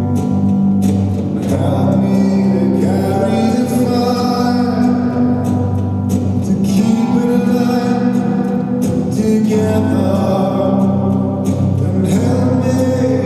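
Live song performance: a male voice singing over guitar accompaniment, with sustained low notes underneath, in the long reverberation of a church.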